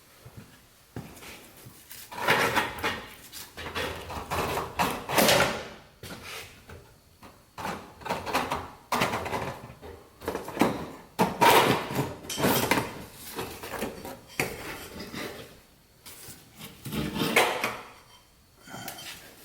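Irregular clanks, scrapes and rattles of hand tools and metal brake parts being handled, in bursts of a second or two with short pauses between.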